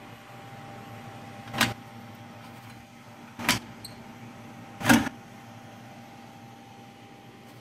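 Three short sharp clacks, the last the loudest, as the build tray is unclipped and slid out of the build chamber of a uPrint 3D printer, over a steady hum with a faint steady tone.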